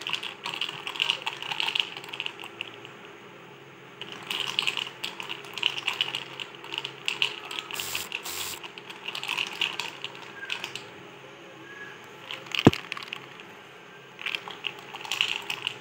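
A lidded glass mason jar of cold coffee with a straw, shaken by hand in several spells, its contents rattling with quick clicks against the glass and lid. A single sharp knock near the end is the loudest sound, over a low steady hum.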